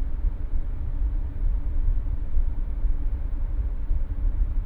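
Steady low rumble of running machinery with a faint hum.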